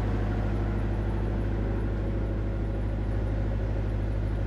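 Steady low-pitched machinery hum, like an engine running at a constant idle, with no change in pitch or level.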